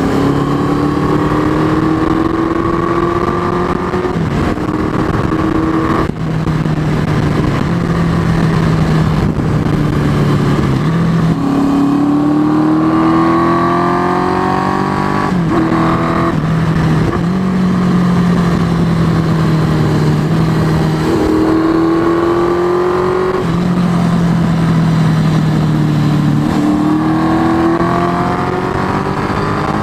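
1987 Suzuki GS650L inline-four motorcycle engine breathing through a 4-into-1 exhaust with an M4 muffler, pulling up in pitch over a few seconds at a time, each pull ending in a sudden drop, about eight times over.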